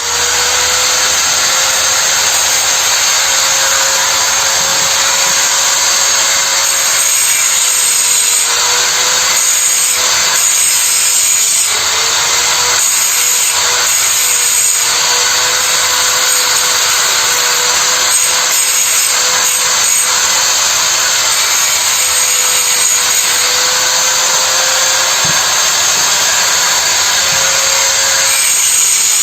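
Stick arc welding with a Lakoni 450 W welder, laying weld onto the worn steel spiral of a meatball grinder to build it back up. The arc starts suddenly and runs with a loud, steady hiss and a faint wavering hum.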